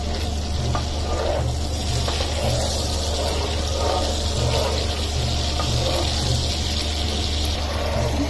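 Cumin seeds sizzling in hot sunflower oil and butter in a non-stick frying pan as they are stirred with a spatula: a steady frying hiss, with a continuous low hum underneath.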